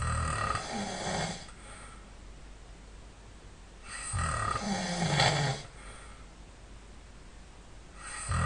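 A person snoring in sleep: three snores about four seconds apart, each about a second and a half long, the last starting near the end.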